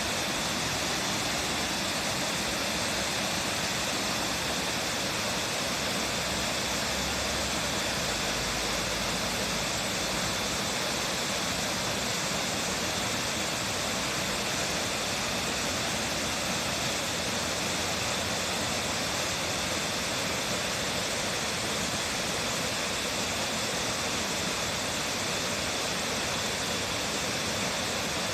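Waterfall pouring steadily: an even, unbroken rush of falling water, bright and hissy.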